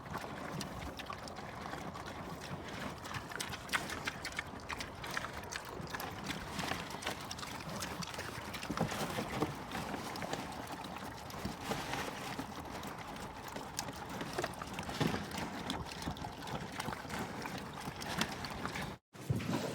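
Bongo antelope moving about: irregular hoof steps and rustles over a steady noisy background. The sound cuts out for a moment near the end.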